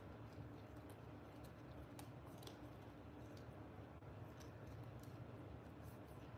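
Faint, irregular clicks and ticks of glossy trading cards being flipped through in the hand, over a low steady room hum.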